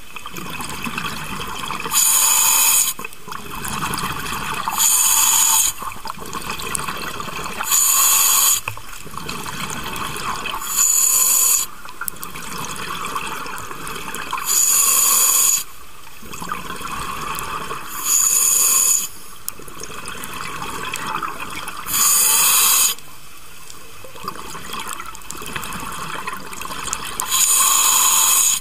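A scuba diver breathing through a regulator underwater: a hiss about a second long on each inhalation, every three to four seconds, with exhaled bubbles gurgling in between.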